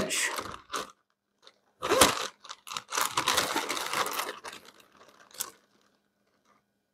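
Crinkling and rustling of fresh spinach being handled: a short burst about two seconds in, then a longer stretch of crackly rustling, with a last short burst near the end.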